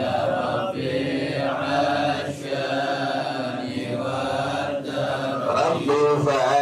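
A man chanting Arabic verses in a slow, melodic voice, holding long wavering notes with short breaks between phrases.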